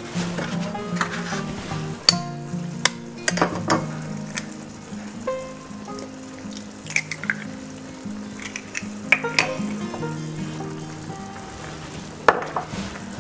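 Tomato and pepper sauce sizzling in a frying pan, with several sharp taps and clicks as eggs are cracked and dropped into it.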